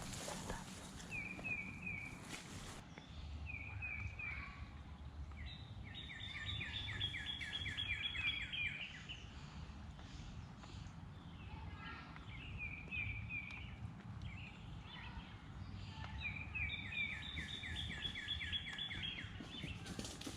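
A songbird singing, repeating a phrase of quick, rapidly repeated notes every few seconds, over a low background rumble.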